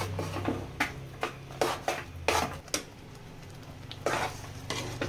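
A metal spatula stirring and scraping a thick dal, coconut and jaggery filling in a nonstick kadai, with irregular clinks and scrapes against the pan.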